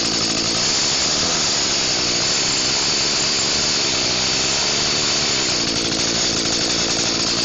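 Small Echo two-stroke chainsaw engine running steadily and loud, kept going after a choke-and-primer start.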